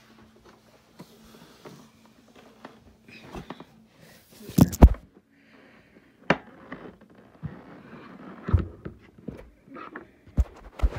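Handling noises: scattered knocks and clunks, the loudest a heavy thump about five seconds in.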